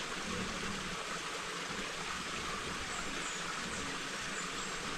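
Small stream flowing, a steady rush of water.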